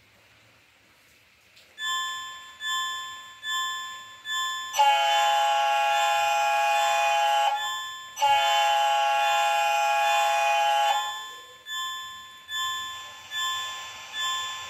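H0-scale model locomotive's sound decoder playing a recorded locomotive bell, ringing about every 0.7 s, then two long blasts of a multi-chime air horn of about three seconds each, after which the bell rings on.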